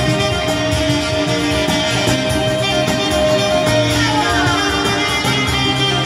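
Live folk band playing an instrumental passage: guitars and accordion over a steady beat, with a falling slide in the melody about four seconds in.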